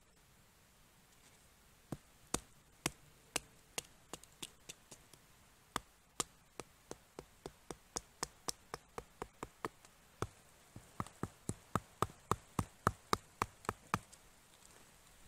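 Wooden baton striking the spine of a knife set into a short upright log, batoning it to split the wood: a long series of sharp wooden knocks starting about two seconds in, quickening to about four a second near the end.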